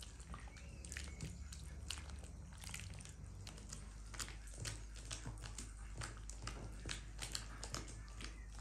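A hand squeezing and kneading wet, oily dough in an enamel bowl: irregular soft squelches and sticky clicks.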